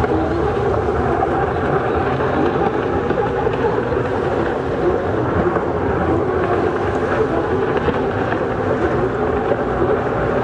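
Several racing jet skis running offshore, a steady mixed engine drone with no breaks, over wind on the microphone.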